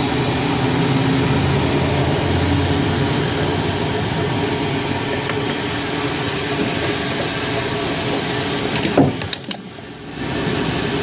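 Steady mechanical hum and whir with a low drone, dipping away for about a second near the end, just after a few light clicks.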